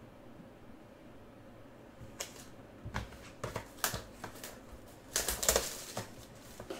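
Plastic shrink-wrap crinkling and tearing as a trading-card box is unwrapped by hand. Irregular sharp crackles start about two seconds in, with a dense, loud burst of crackling near the end.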